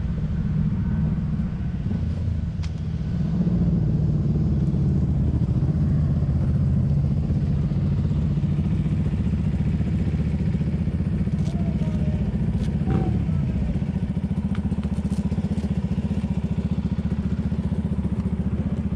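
Husqvarna supermoto's single-cylinder engine running at low speed and idling, a steady low engine note.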